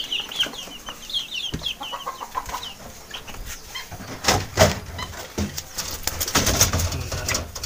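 Chickens calling in quick runs of short, high clucks for the first couple of seconds, then scuffling and knocking noises with a few scattered calls.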